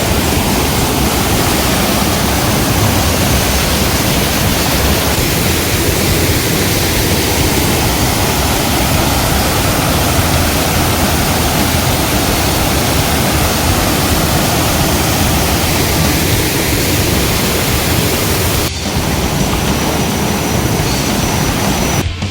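Loud, steady rush of falling water, like a waterfall, with abrupt breaks near the end.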